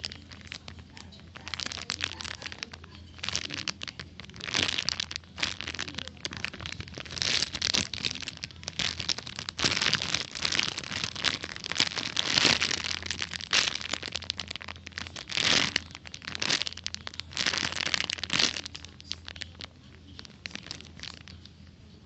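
Crinkling and rustling handling noise close to the microphone, in irregular bursts that build up through the middle and die down near the end, over a steady low hum.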